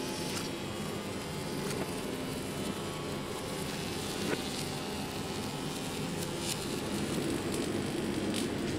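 Laser welding line at work, its head travelling along copper tubes on a solar absorber plate: a steady mechanical hum and buzz, with a few faint sharp clicks.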